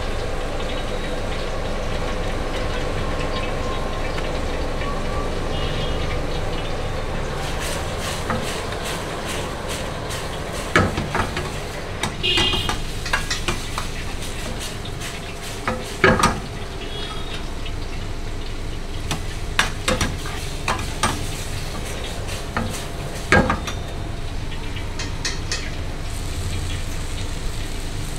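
Manchurian sauce sizzling and bubbling in a steel wok over a gas flame while a metal ladle stirs it. From about a third of the way in, the ladle knocks sharply against the pan several times as the fried vegetable balls are tossed in the sauce.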